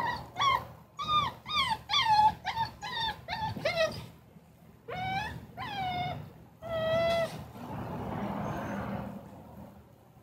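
Puppy whining from inside a mesh pet stroller. About ten short, high-pitched whines fall in pitch in a quick string over the first four seconds, followed by three longer drawn-out whines about five to seven seconds in.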